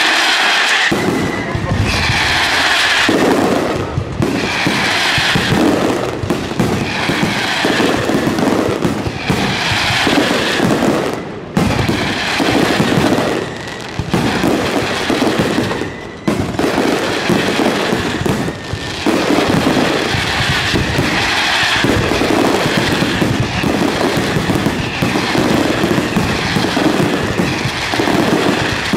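Aerial firework shells bursting in a dense, continuous barrage, with booms and crackle overlapping and a new wave of bursts about every one to two seconds.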